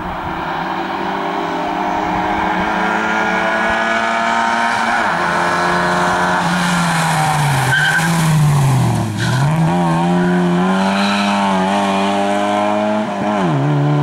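Lada 2104 rally car's four-cylinder engine revving hard as it approaches, passes close and pulls away. The engine note drops and climbs again twice in the middle as the driver lifts and gets back on the throttle, and it dips sharply and rises again near the end at a gear change. Brief tyre squeal as the car corners past.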